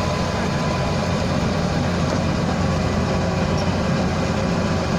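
Rice combine harvester running steadily, its engine giving a low, even drone under the machinery noise.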